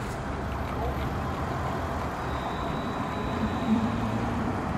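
Paris T2 tram, an Alstom Citadis, pulling away and passing close by: a steady rumble of its running gear on the rails, with a faint high whine coming in about halfway and a low motor hum near the end.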